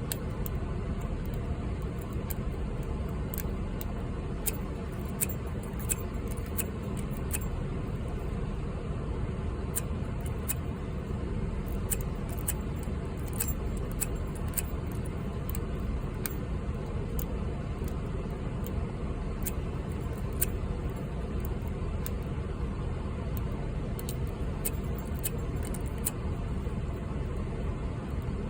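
Small, irregular metallic clicks and ticks of a hook pick and tension wrench working the pins of a 38mm Ace padlock, over a steady low rumble.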